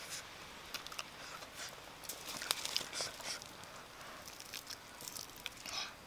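Burned, fire-roasted cassava root being peeled and eaten by hand: the charred skin breaks off in scattered small crackles and clicks, densest between about two and three and a half seconds in.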